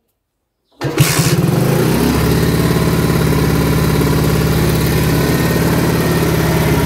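Alpha moped's single-cylinder four-stroke engine starting about a second in, with a brief rev, then settling into a steady idle. With the valve clearances just adjusted, it runs evenly without valve ticking.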